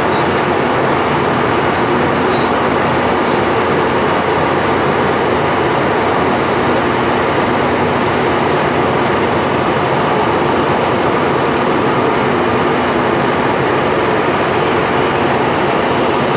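Steady drone of an aircraft cabin in flight, engine and airflow noise, even and unchanging, with a faint steady hum beneath it.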